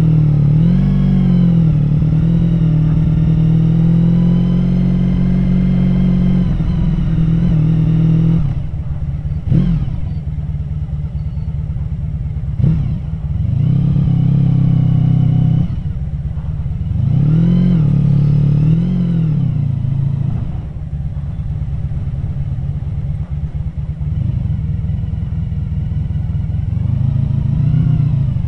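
Honda VF1000R's 1000 cc V4 engine, running on VF1000F-model carburetors with 145 main jets, ridden at low speed with the throttle opened and closed several times, the pitch rising and falling with each opening. For the last third it settles to a low, steady idle.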